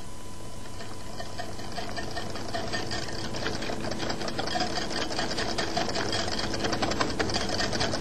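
A wire whisk beating mayonnaise and tomato sauce together in a glass bowl: fast, even clicking of the wires against the glass, starting about a second in and growing louder as the whisking speeds up.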